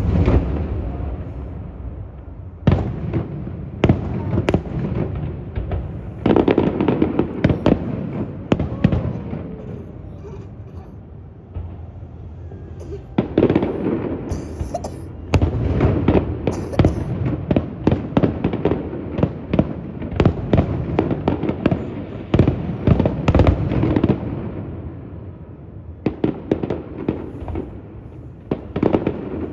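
Fireworks display: a dense, continuing run of bangs and crackling pops, coming in volleys that swell and ease off every few seconds.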